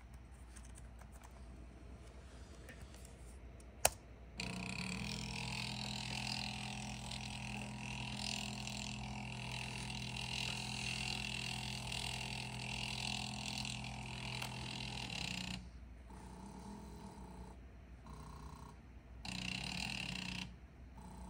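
17HS4023 NEMA 17 stepper motors of a pen plotter running, after a single sharp click about four seconds in. The motors give a steady buzzing whine with several tones for about eleven seconds, then shorter runs of about a second each with pauses between, as the plotter moves stroke by stroke.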